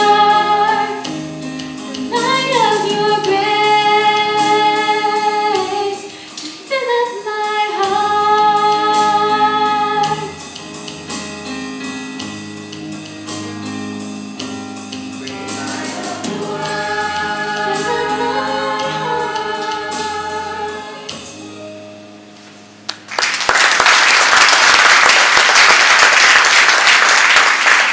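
Youth choir singing a song in held, sustained notes, the final chord dying away about 22 seconds in. Audience applause breaks out right after and runs through the last five seconds.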